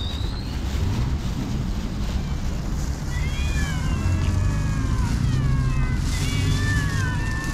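Several stray cats meowing, their overlapping meows coming thick in the second half, over a steady low rumble.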